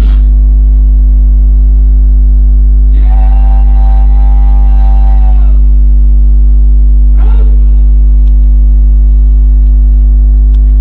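Loud, steady electrical mains hum: a low drone with a stack of overtones. About three seconds in, a held pitched tone rises over it for about two and a half seconds, and a brief one follows about seven seconds in.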